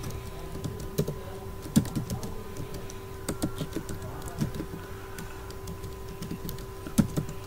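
Typing on a computer keyboard: irregular key clicks, with a few louder keystrokes, over a faint steady hum.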